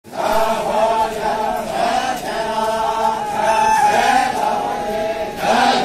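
A group of voices chanting together in long, wavering held notes: the Chang people's chant as they carry a log drum.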